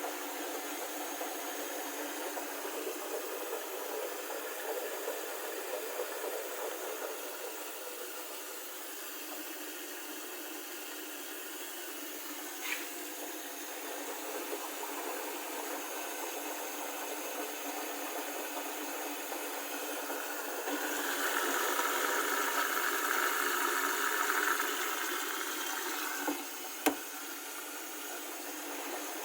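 Hotpoint Ariston VMUF 501 B washing machine running its rinse cycle, with water running in. A louder rush of water comes about twenty seconds in and lasts about four seconds, with a couple of small clicks.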